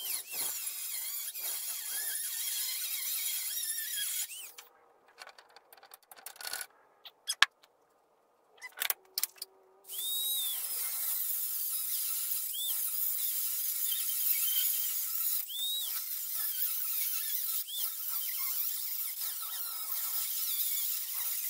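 Small handheld high-speed rotary tool cutting through the steel braces of a 1955 Chevy truck radiator core support: a high-pitched grinding whine that rises and sags in pitch as the wheel bites the metal. It stops about four seconds in, leaving about six seconds of quiet with a few clicks and knocks, then starts cutting again.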